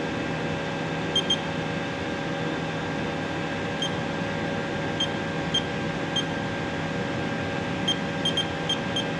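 Short high beeps from a Haas CNC control keypad as keys are pressed, about a dozen in irregular groups, several close together near the end. Under them the Haas VM3 vertical machining center gives a steady hum.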